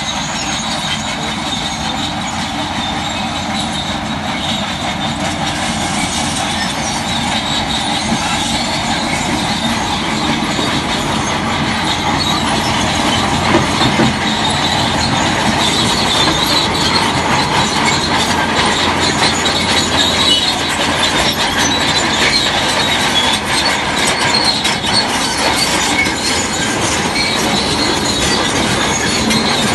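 Crawler bulldozer working, its steel tracks clanking and squealing over the running engine, slowly growing louder.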